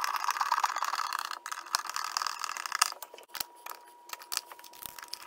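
Screwdriver turning a mounting screw to fasten a GFCI outlet into a metal electrical box: a fast run of scratchy, grinding ticks for about three seconds, then scattered light clicks as the cover plate is handled.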